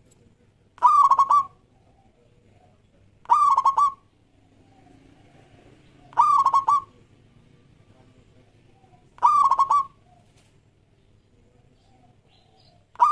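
Zebra dove (perkutut) cooing: four short rolling coos, each a quick run of a few notes, repeated about every three seconds, with a fifth starting just at the end.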